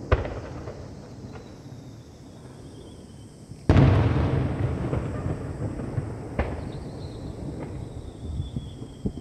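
Aerial firework shells bursting: a sharp crack at the start, then a loud boom about four seconds in that rolls on with a long echo, followed by smaller bangs. A faint whistle is heard just before the loud boom.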